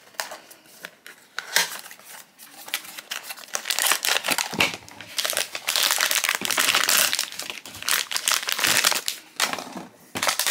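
A cardboard Pop Mart blind box being opened by hand, with the foil bag inside torn open and crinkled in busy bursts, loudest around the middle.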